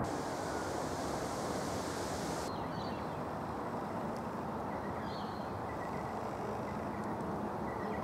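Steady outdoor background noise with a low, even rumble, and a few faint high chirps about two and a half and five seconds in.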